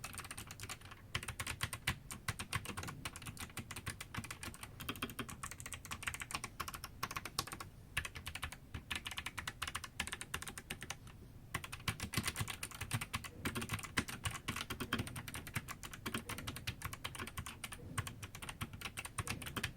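Fast typing on a Fantech Maxfit 67 mechanical keyboard with white clicky switches: a dense, continuous run of key clicks, thinning briefly now and then.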